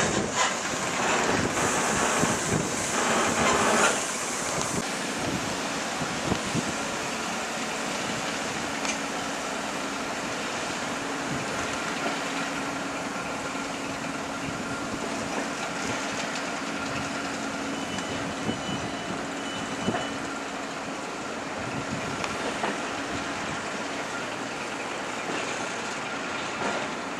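Diesel shunting locomotive running slowly with a rake of open wagons, its engine giving a steady low hum over wheel and wagon noise. The wagon noise is louder and more uneven for the first few seconds.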